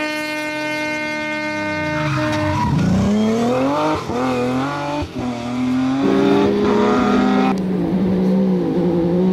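Classic BMW 3 Series rally car's engine held at high revs on the approach, then dropping in steps as it slows and shifts down for a bend, and revving up again through the gears on the way out. Near the end, another rally car's engine is heard running hard.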